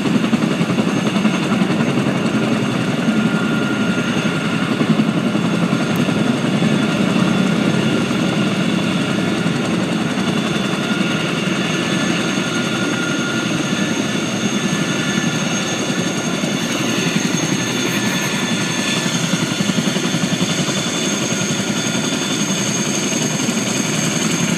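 Boeing CH-47 Chinook tandem-rotor helicopter running on the ground: a steady high turbine whine from its twin engines over the rapid beat of its two rotors.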